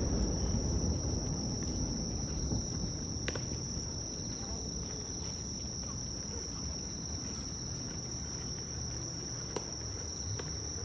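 Insects singing in a steady, continuous high trill, while the low rumble of a firework burst fades over the first few seconds. Two faint distant pops break in, about three seconds in and near the end.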